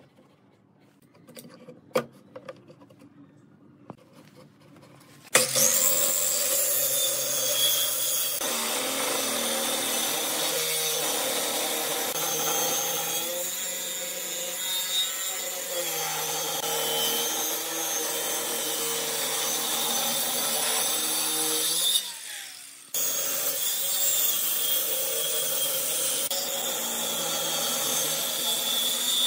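A few light clicks, then about five seconds in a handheld circular saw starts cutting along the edge of a wooden panel, steady and loud. It stops briefly about 22 seconds in, then cuts again.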